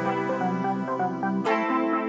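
Electronic music with quick runs of plucked or synthesised notes over a sustained bass. A new bar or phrase comes in with a crash about one and a half seconds in.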